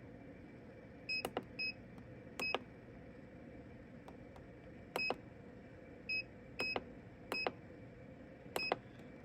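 Mini heat press's digital control panel beeping as its buttons are pressed: about eight short, high beeps at uneven intervals.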